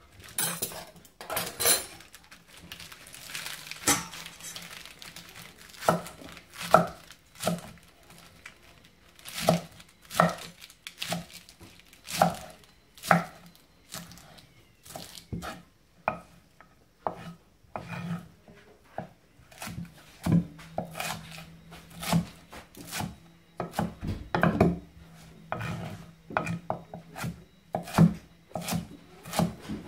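A kitchen knife chopping iceberg lettuce on a wooden chopping board: a long irregular run of sharp knocks as the blade meets the board, roughly one a second, with the crisp leaves crunching under the cuts.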